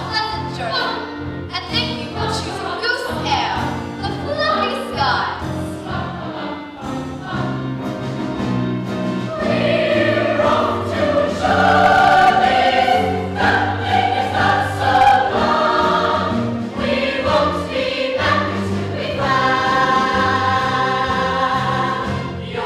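A stage-musical cast singing together with instrumental accompaniment, ending on long held notes.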